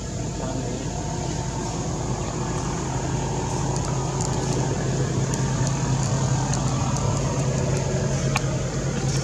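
Steady low drone of an engine running, a little louder from about three seconds in.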